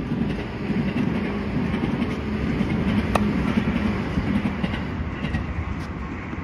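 A loud, steady low rumble that swells and then eases off, with one sharp tennis racket-on-ball hit about three seconds in.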